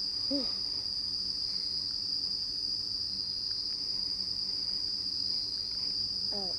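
Night insects trilling: one steady, unbroken high-pitched chorus that does not change. A very short murmured voice sound comes about half a second in and again near the end.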